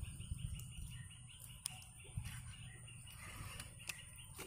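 A small bird chirping in a quick run of short notes, over a steady low rumble, with a few sharp clicks from handling the camera and fishing gear.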